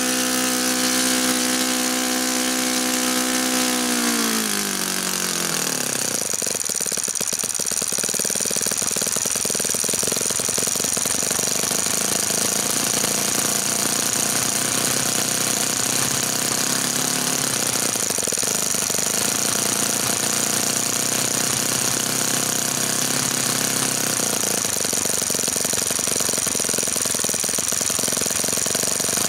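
OS FS-60 four-stroke glow engine swinging a 13x6 wooden prop, running steadily, then throttled down with a falling pitch about four to six seconds in. It settles into a low, choppy idle with distinct firing beats while the throttle stop screw is adjusted to set the low speed.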